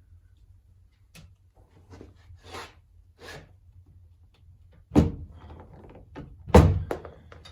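Glue dent puller yanking at a car's sheet-metal door panel: two loud sharp thunks, about five seconds in and again a second and a half later, with quieter knocks and handling noise before them. The dent does not give; a crease holds the metal.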